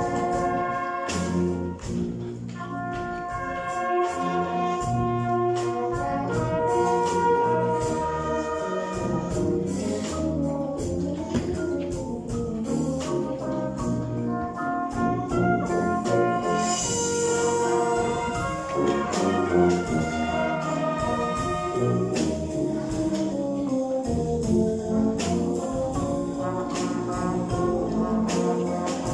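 A batterie-fanfare band playing live: brass, trumpets, trombones and tubas, moving through sustained chords, with percussion strokes throughout.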